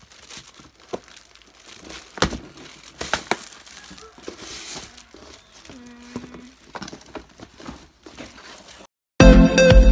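Plastic gift wrap crinkling and a cardboard box's flaps being handled and pulled open, with irregular rustling and scattered sharp knocks. After a brief silence, electronic dance music starts abruptly just before the end.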